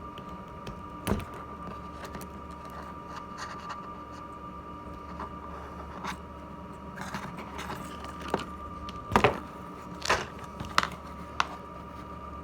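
Wire strippers working the insulation off an automotive turn signal lead wire: scattered small clicks and scrapes, with a few sharper clicks near the end, over a steady faint hum.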